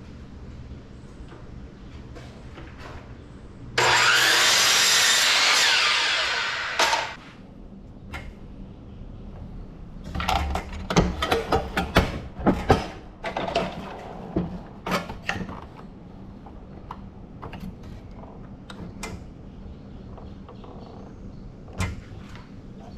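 Electric miter saw cutting through two screwed-together sheets of half-inch plywood: the saw starts about four seconds in, runs for about three seconds, and winds down. Later comes a run of knocks and clatter.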